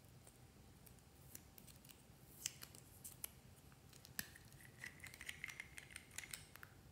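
Faint clicks and scratches of fingernails on a small makeup bottle, then, from about four seconds in, a rapid run of small clicks with a thin squeak as its screw cap is twisted off.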